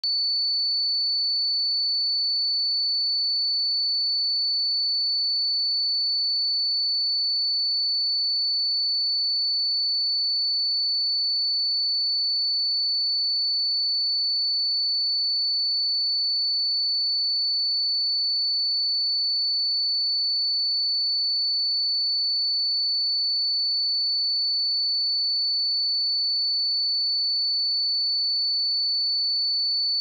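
A steady 4483 Hz sine-wave test tone: one pure, high-pitched note held at a constant level, used to check speakers and headphones.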